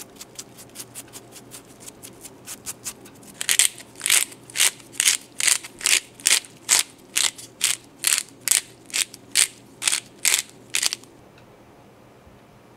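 Hand-twisted pepper mill grinding black pepper: a rhythmic crunching, faint at first, then loud from about three and a half seconds in at roughly two twists a second, stopping near the end.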